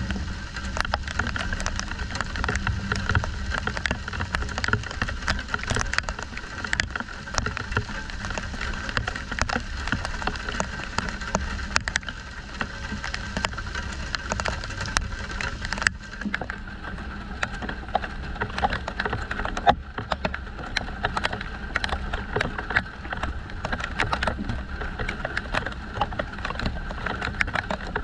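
Steady rain falling during a thunderstorm, with many individual drops clicking sharply on surfaces close to the microphone. The high hiss thins about halfway through.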